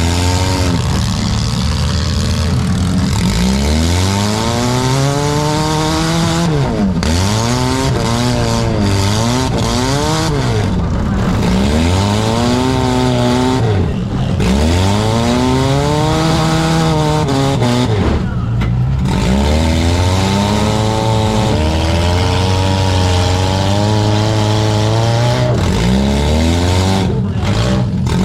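Four-cylinder demolition derby cars' engines revving hard, their pitch climbing and falling again every second or two as the drivers accelerate and back off.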